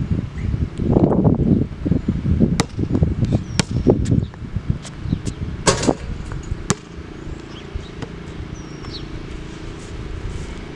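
Wind buffeting the microphone, with a few sharp knocks from a basketball being played. Faint bird chirps come in the second half.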